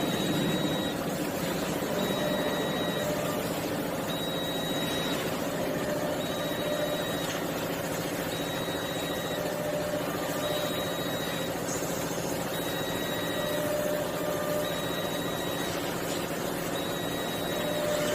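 CNC wood turning lathe running steadily, with a high-pitched tone that sounds for about a second, then stops for about a second, over and over.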